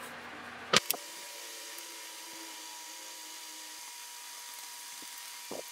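A single sharp click about a second in, then a faint steady hum with a thin high tone running under it, and a few soft taps near the end.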